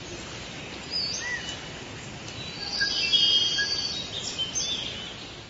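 Forest ambience: birds chirping and whistling over a steady background hiss, busiest about halfway through and fading out near the end.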